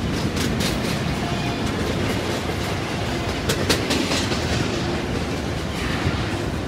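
Double-stack intermodal well cars rolling past: a steady rumble of steel wheels on the rails, with sharp clicks about half a second in and again around three and a half seconds.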